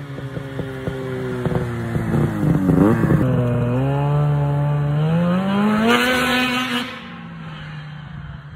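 2005 Ski-Doo Rev 600 HO SDI snowmobile's two-stroke twin engine passing by at speed. Its pitch falls as it goes past, then climbs as it pulls away, and it drops off suddenly about seven seconds in.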